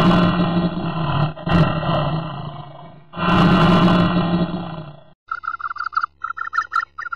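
Dinosaur roar sound effect: two long, loud roars with a short one between them. About five seconds in the roars stop and a rapid, pulsing animal call takes over.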